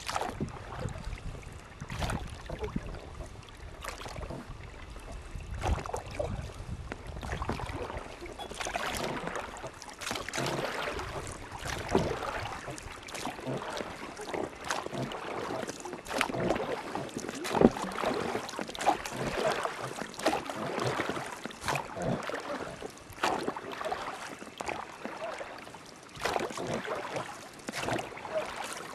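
River water splashing and lapping around a small boat, with scattered irregular knocks. Wind rumbles on the microphone for roughly the first eight seconds.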